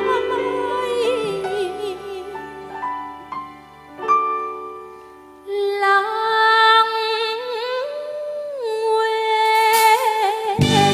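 Live music: a woman's voice holds long notes with vibrato over soft keyboard accompaniment, thinning out to a quieter passage midway. Near the end the full band comes in with bass and drums.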